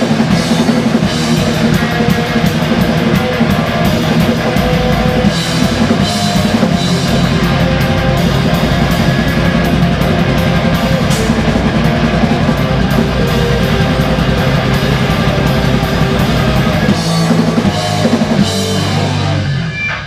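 A band playing loud rock live, with drum kit and electric guitars.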